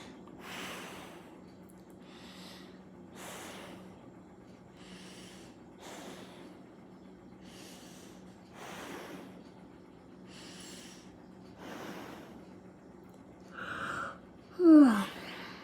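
A person breathing nervously, as if frightened: a run of short, airy, irregular breaths. Near the end comes one loud voiced gasp that slides down in pitch.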